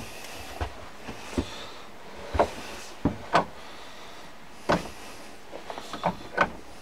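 Arbor press pushing a keyway broach through the bore of a lathe back gear: a string of sharp metallic clicks and knocks, with a quicker run of clicks near the end as the press works.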